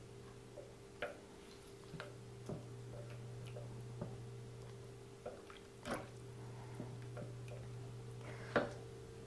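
Scattered light clicks and taps of kitchen tongs against a slow cooker's crock and the meat as lamb knuckles are moved about, about one a second, over a steady low hum.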